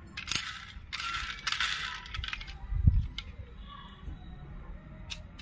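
Plastic toy backhoe loader being handled, its plastic parts rattling, clicking and scraping, with a dull thump about three seconds in.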